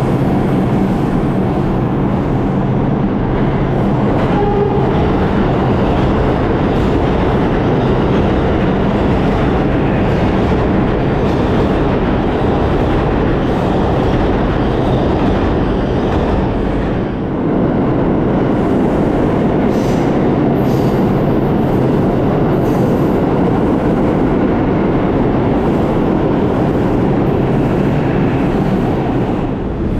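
Subway trains running past an underground station platform, a steady loud rumble of wheels on rails, with a short dip in loudness about halfway through.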